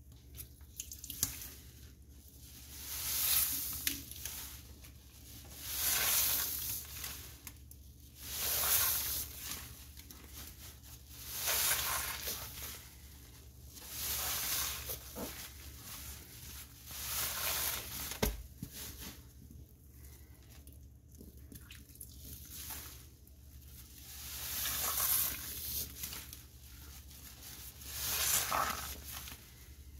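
A soapy sponge squeezed over and over, about once every three seconds, each squeeze a swell of wet, fizzing hiss from the suds that then fades.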